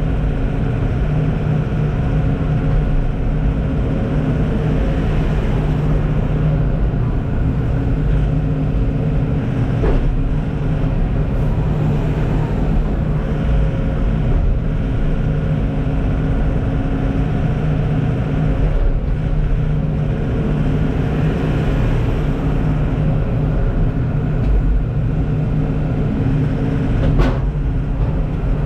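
Heavy diesel engine running steadily under load, a constant low drone with two brief knocks, about ten seconds in and near the end.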